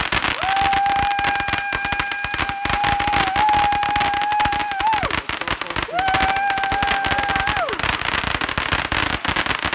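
Ground fountain firework burning, with a dense, rapid crackle of sparks. Over it, a steady high whistling tone holds for about four and a half seconds, then sounds again for nearly two seconds after a short break.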